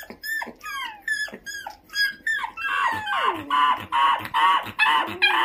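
A young puppy squealing and whining: a quick run of short, high-pitched cries, each falling in pitch, a few per second. The cries grow louder and more drawn-out from about halfway.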